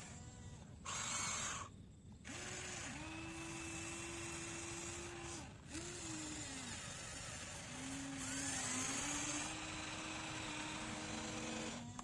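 Small electric motors of a radio-controlled excavator whining as it digs, in several spells whose pitch sags and rises with the load. A brief louder hiss comes about a second in.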